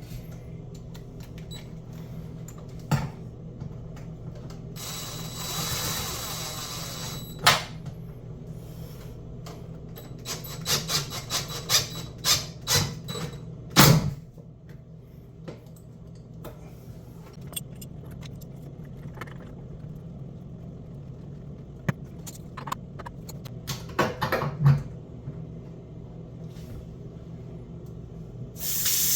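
Clicks, knocks and short rattles of metal tools and fittings being handled at a kitchen sink during a faucet install, over a steady low hum. Just before the end the new faucet is turned on and water starts running into the sink.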